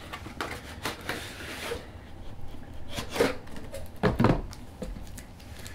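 A microphone's packaging being handled and opened by hand: rubbing and scraping of box material, a rustle about a second in, and a few knocks and clicks.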